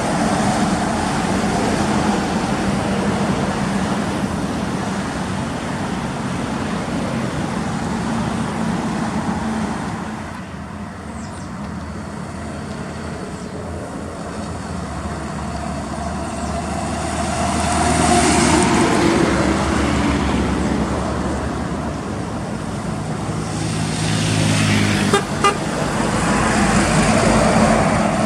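Heavy diesel trucks passing on a highway, the engine sound swelling and fading as each goes by, with a horn toot and a short sharp knock near the end.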